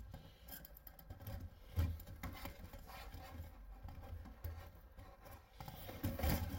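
Faint handling sounds as flue and vent parts are worked by hand: scattered light clicks, taps and rustles, with a low bump about two seconds in and another near the end.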